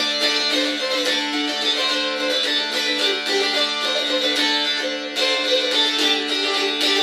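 Chromatic lap dulcimer strummed: quick, even strokes across the strings, with steady drone notes sounding under a melody fretted on the fingerboard, briefly softer about five seconds in.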